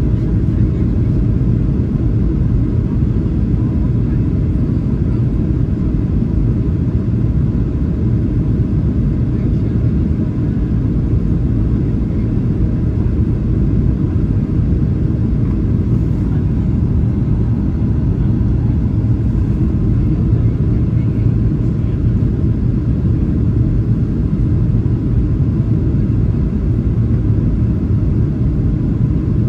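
Steady cabin rumble of a Boeing 737-900 on approach: engine and airflow noise heard from a window seat over the wing, even and unchanging, with a faint steady hum above it.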